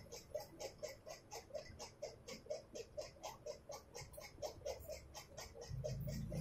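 Ultrasonic and TENS combination therapy unit giving a steady electronic pulsing, about four short pulses a second, while its TENS output runs on channel 1. A low hum swells in near the end.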